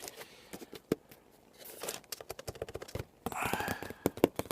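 Hands handling a mail package: quick irregular taps and scratches on its surface, with two short rustles.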